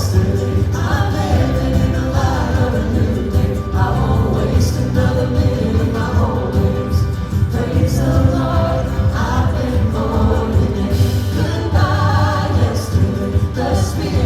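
Congregational worship song: a band with strong bass and voices singing together.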